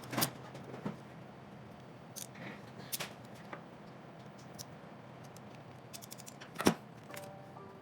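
Hand crimping tool and small wire terminals being worked: a series of sharp clicks and snaps with light handling rattle between, the loudest snap near the end.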